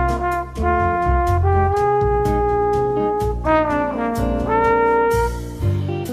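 Bossa nova background music: a brass-like melody of long held notes over a bass line and light, even percussion ticks.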